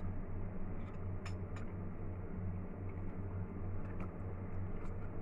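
A steady low hum, with a few faint clicks of metal chopsticks against a ceramic noodle bowl as noodles are lifted and eaten.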